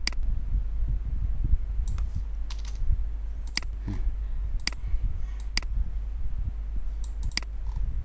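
Computer mouse clicks, sharp and isolated, about a dozen over several seconds, some in quick pairs like double-clicks, over a low steady hum.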